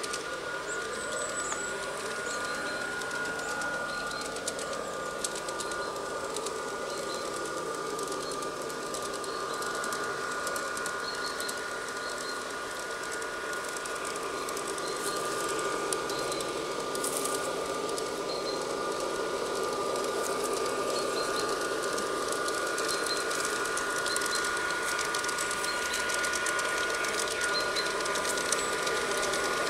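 LGB G-scale model class 220 diesel locomotive running with a short train on garden railway track: a steady motor whine over the rattle of wheels on the rails, growing louder over the last ten seconds as it comes closer.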